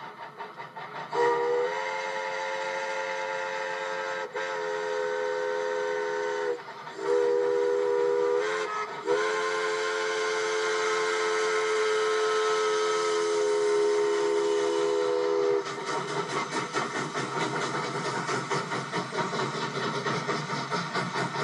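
Steam locomotive's chime whistle blown in four blasts, long, long, short and a very long last one, sounding a chord of several tones. As the last blast ends, the engine's exhaust chuffs come in fast and even as it works past.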